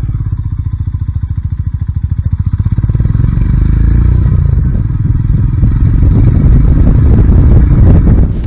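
Royal Enfield Himalayan's single-cylinder engine running with steady firing pulses as the motorcycle rides along. It gets louder about three seconds in as the rider pulls harder.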